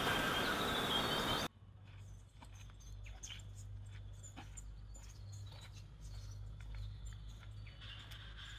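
Quiet outdoor bush ambience with faint bird chirps and soft scattered ticks over a low steady rumble. A louder stretch of steady noise with a high steady whine cuts off suddenly about a second and a half in.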